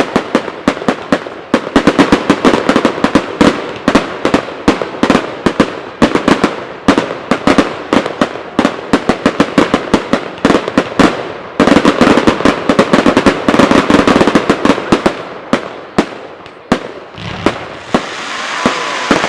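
Fireworks display: a dense barrage of sharp bangs in quick succession, several a second, thinning out near the end.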